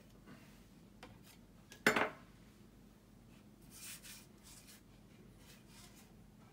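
A metal palette knife is set down with one sharp clatter about two seconds in. Soft rubbing and shuffling follow as hands take hold of a paint-covered canvas resting on a plastic bin.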